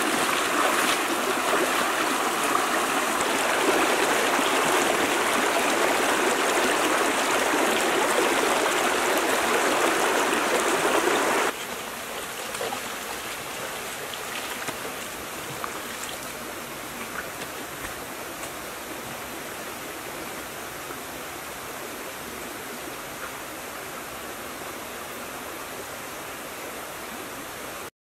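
Shallow stream rushing over rocks, a steady rush of water. It drops abruptly to a quieter level about eleven and a half seconds in, then cuts off just before the end.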